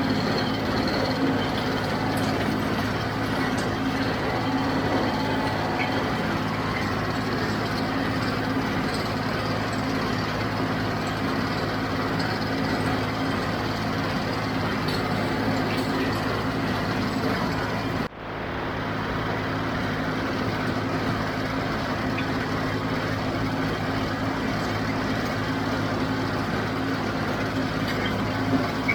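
John Deere 5055D diesel tractor running steadily under load, pulling a JD 348 square baler through the hay. The sound drops out briefly about two-thirds of the way through, then returns unchanged.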